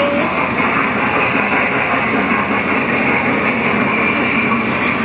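Small Thomas the Tank Engine kiddie ride train running on its track: a steady, loud rumbling noise with music mixed in.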